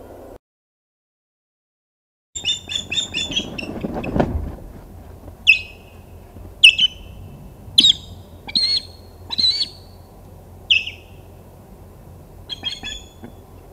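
Female osprey on the nest giving alarm calls, starting about two seconds in: a fast run of shrill chirps, then single sharp calls roughly once a second, then another quick run near the end. This is the call that signals another osprey too close to the nest.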